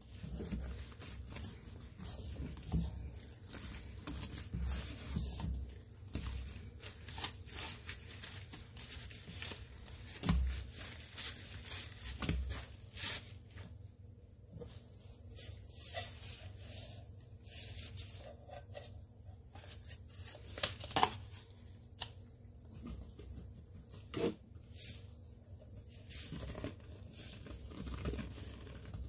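Rubber-gloved hands squishing and kneading a thick, foamy paste of Comet cleanser, Fabuloso and Ariel detergent, giving irregular wet clicks and crackles with a few sharper smacks.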